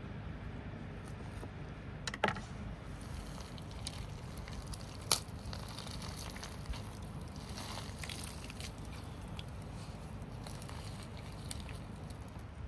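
Pomegranate seeds and drops of juice pattering onto a plate of sliced red onions, as many faint small clicks, with a brief crunch about two seconds in as a knife cuts the pomegranate and a single sharp knock about five seconds in.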